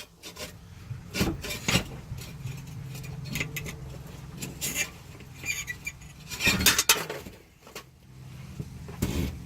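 Scattered metal clanks, clinks and scrapes from work on the underside of a junkyard truck as its transmission is lowered, with a louder cluster of knocks about two-thirds of the way through. A steady low hum runs underneath.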